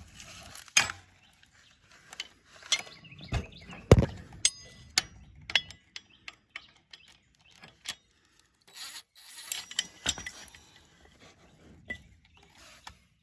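Irregular metal-on-metal clinks and knocks, some ringing briefly, from a wrench working loose the bolt of a riding mower's electric PTO clutch. The loudest knock is about four seconds in.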